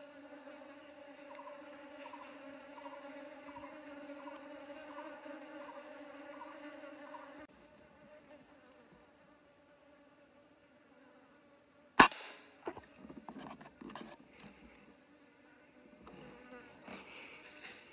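A steady insect hum, like a fly buzzing close by, that cuts off abruptly about seven seconds in. About twelve seconds in comes a single sharp crack of an air rifle fired at a squirrel, followed by a second or two of scattered knocks and rustling in the foliage.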